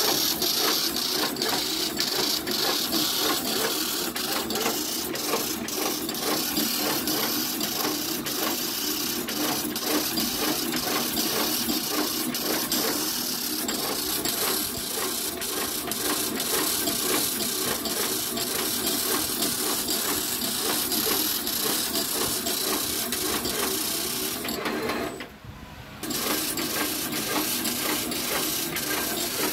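Fully automatic agarbatti making machine running: a steady mechanical clatter of regular, rapidly repeating clicks. The sound drops out briefly for about a second near the end, then resumes.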